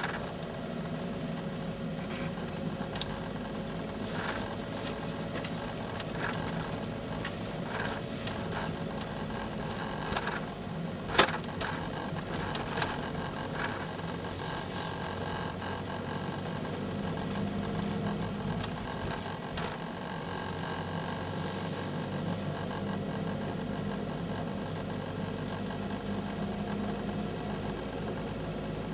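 A vehicle's engine running steadily as it drives up a climbing road, with tyre and road noise, heard from inside the vehicle. A single sharp click about eleven seconds in.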